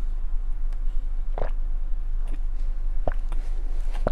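Drinking from a plastic water bottle: a few faint gulps and small knocks of the bottle, over a steady low hum.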